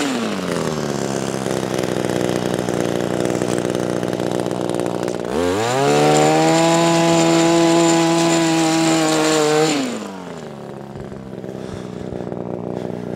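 Echo PAS-266 powerhead's small two-stroke engine driving the Pro Paddle power broom. It drops from full throttle to idle at the start, revs back up about five seconds in and holds high for about four seconds, then falls back to idle.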